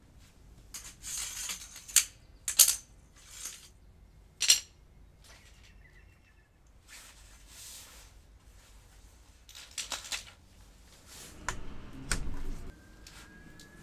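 Shock-corded aluminium poles of a Helinox Lite Cot being assembled: sharp metallic clicks and clatters as the sections snap together and are handled on the paving, loudest two to four and a half seconds in. Softer swishing sounds come in between, and there is a duller knock near the end.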